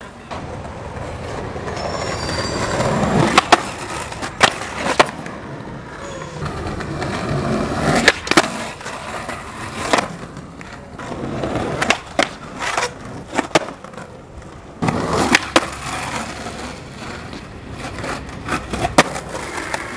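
Skateboard wheels rolling on concrete pavement, swelling and fading over several runs. The rolling is broken by sharp clacks of the board popping and landing on ledge tricks, often two or three close together.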